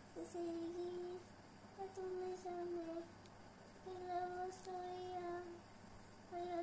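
A high voice singing a slow tune in short phrases of held, nearly level notes, with brief pauses between the phrases.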